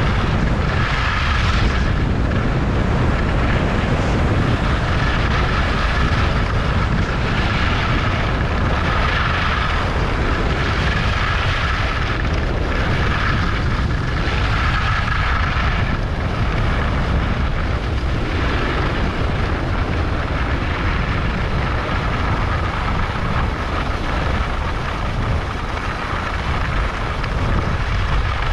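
Wind buffeting a moving microphone during a ski descent, a steady low rumble, with the hiss and scrape of skis on snow swelling and fading every couple of seconds as the turns are linked.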